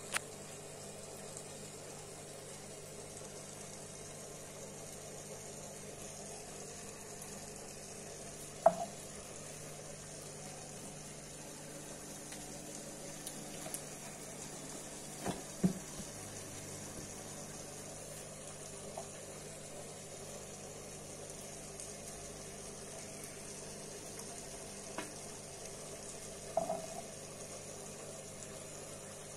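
Aquarium submersible filter running, its outflow jet and air bubbles fizzing in a steady crackling hiss. A few sharp knocks break in, the loudest about nine seconds in, two more around fifteen to sixteen seconds, and another near the end.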